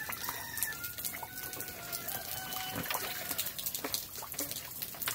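Pot-bellied pig blowing bubbles with its snout in a rainwater puddle, giving soft bubbling and splashing among the steady patter of rain, with a few faint, drawn-out high calls in the background.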